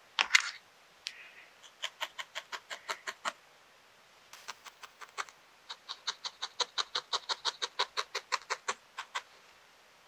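A felting needle stabbing repeatedly into a ball of wool, a crisp tick with each jab at about six a second, in two runs with a pause between them. A brief, louder rustle of handling comes right at the start.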